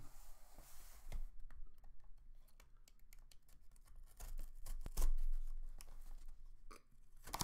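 Knife blade slitting the plastic packing tape on a cardboard case: a run of small scratchy clicks and crackles, with a sharper click about five seconds in.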